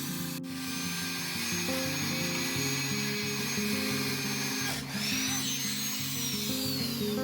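Background music over a power tool cutting wood, heard as a thin high whine. Toward the end its pitch rises and then falls away.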